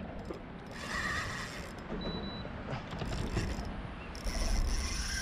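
Fishing reel whirring and clicking as it is cranked and works against a hooked sheepshead, in bursts about a second in and again near the end.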